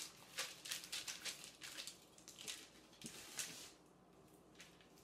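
Faint rustling and light scraping of hands and a utensil working cookie dough scraps on parchment paper: a string of short, soft swishes that dies down after about three and a half seconds.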